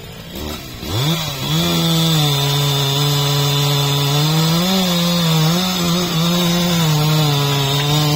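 Stihl MS 361 two-stroke chainsaw revved up about a second in and held at high speed while cutting into a birch trunk. Its pitch dips and wavers as the chain loads in the cut.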